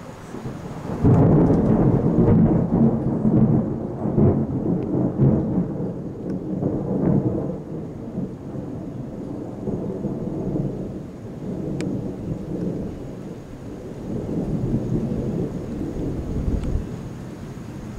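Thunder: a deep rumble breaks in suddenly about a second in, rolls loudest over the next several seconds, then keeps rumbling more quietly in swelling waves.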